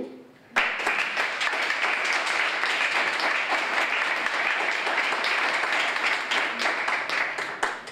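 Audience applauding: dense clapping that breaks out suddenly about half a second in, holds steady, and dies away just before the end.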